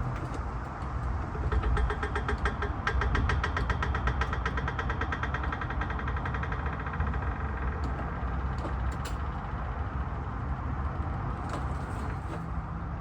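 Rapid, evenly spaced mechanical clicking, many clicks a second, starting about a second and a half in and stopping about halfway through, over a steady low rumble.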